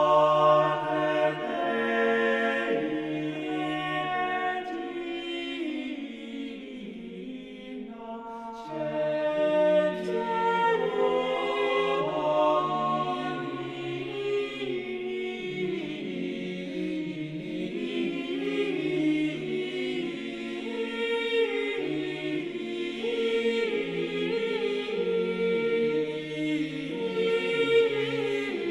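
Choir singing a cappella in slow, sustained chords, easing off about six seconds in and swelling again just before nine seconds.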